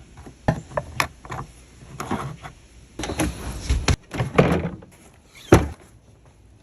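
BMW 525i fuel filler door and its latch being worked by hand: a series of sharp clicks and knocks as the flap is pushed, pops open and is snapped shut, with scraping handling noise between them and a loud snap near the end.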